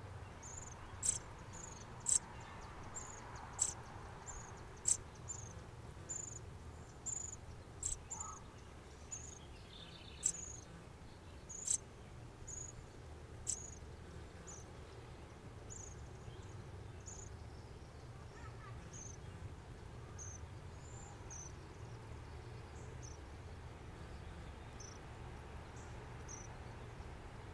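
Northern cardinal giving sharp, high chip calls about once a second, loud at first and fading to faint in the second half, over a low steady hum.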